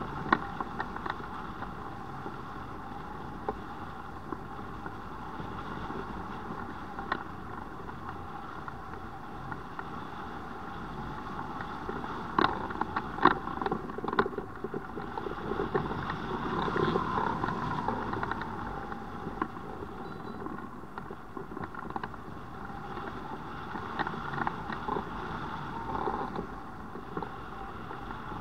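Steady rush of airflow over a hang glider in flight and across the wing-mounted camera, with scattered sharp clicks and knocks. The wind noise grows louder and busier between about 12 and 19 seconds in.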